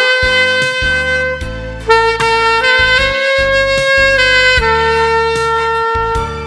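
Instrumental music: a saxophone playing a slow melody in long held notes over a backing track.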